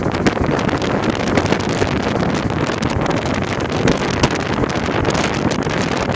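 Wind buffeting the microphone with a steady rush of road and tyre noise from a car driving along, full of short crackles.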